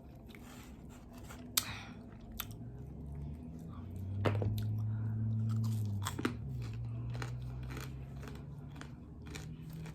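Close-up chewing and biting of crispy fried chicken wings, with scattered crunches and mouth clicks. A low steady hum sits underneath, loudest in the middle.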